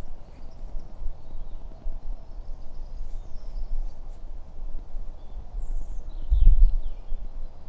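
Outdoor woodland ambience: a low rumble of wind on the microphone that swells about six seconds in, with a few faint bird chirps.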